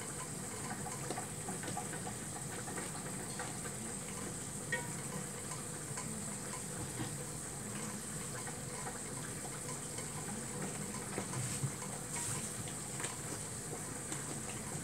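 Béchamel sauce being stirred in an aluminium pan over a gas flame as it thickens with melting mozzarella: a steady, fairly quiet hiss with faint light clicks and scrapes of the utensil against the pan.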